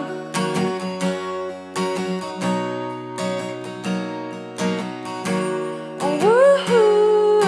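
Guitar strummed in a live song's instrumental gap between sung lines, with repeated chord strokes. About six seconds in, a wordless vocal note slides upward and is held.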